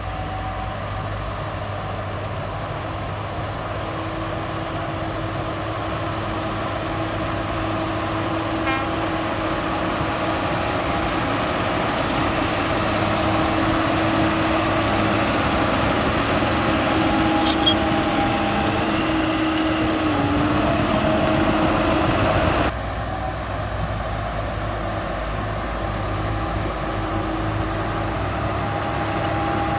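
Heavy diesel earth-moving machinery running steadily under work, growing gradually louder, with a few sharp metallic clinks near the middle. The sound drops abruptly about 23 seconds in, then carries on running.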